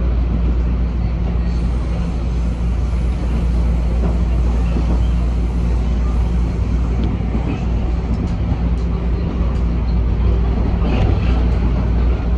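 TTC subway train running at speed, heard from inside the car: a steady low rumble of wheels on rail, with an even hum underneath.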